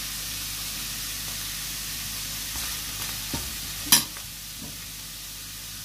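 Mushrooms and grated carrot frying in a non-stick frying pan with a steady sizzle, stirred with a utensil: a couple of light taps and one sharp knock of the utensil against the pan about four seconds in.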